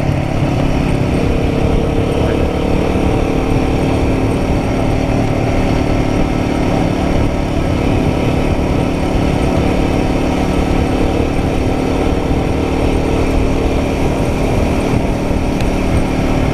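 Royal Enfield Guerrilla 450's single-cylinder engine running steadily at an even cruising speed, with wind and road noise under it.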